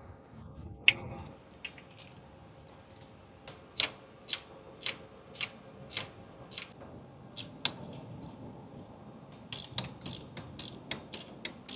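Ratchet wrench clicking in short strokes as a mounting nut is loosened. The clicks start a few seconds in, come about twice a second, and come faster near the end.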